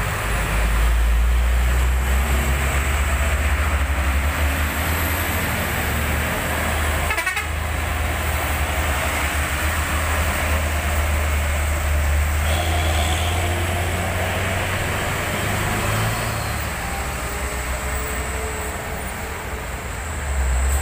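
Heavily loaded diesel trucks labouring uphill, with a steady low engine drone and tyres hissing on the wet road. A brief horn toot sounds about halfway through.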